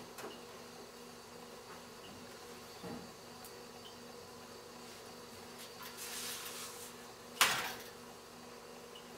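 A steady low hum with a faint high whine. About seven seconds in, a spatula knocks once against the electric stove with a single sharp clack.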